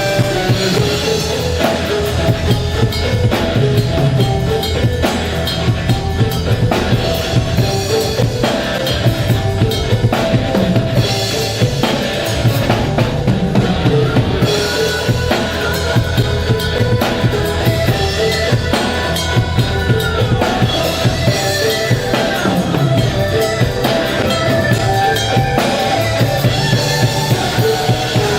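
Drums played continuously during a sound check, with bass drum and snare hits in a steady stream, over some sustained pitched musical tones.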